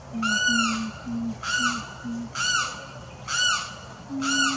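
A limpkin calling: a series of short, pitched cries about one a second, each rising then falling in pitch.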